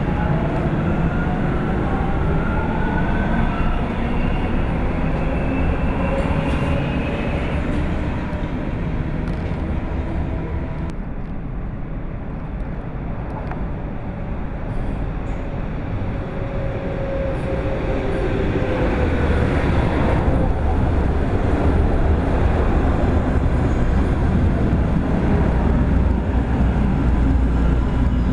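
Subway train running on its line, its traction motors whining up in pitch as it gathers speed, over a steady rumble of wheels on track. The rumble grows louder and deeper in the last third.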